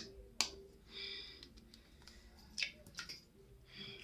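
An egg knocked sharply against the edge of a bowl to crack the shell, with two sharp knocks at the start and a few lighter clicks about three seconds in as the shell is broken open.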